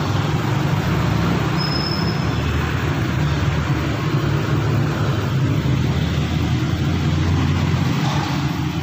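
Steady motor-vehicle rumble with a constant low hum, like road traffic.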